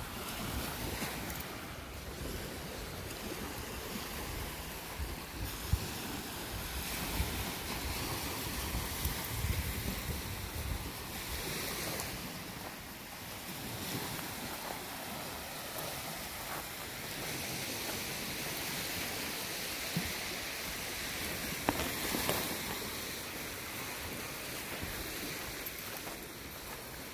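Small waves washing onto a gravel lakeshore with wind blowing, and gusts rumbling on the microphone, mostly in the first half.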